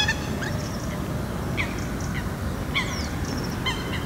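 Geese honking: short, separate calls at irregular intervals of half a second to a second, one with a falling whistle, over a steady low background noise.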